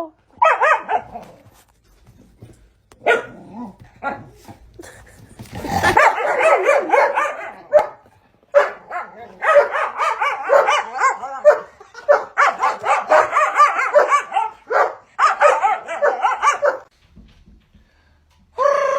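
A dog barking in long, rapid runs of short barks with brief pauses between runs, after a few scattered calls.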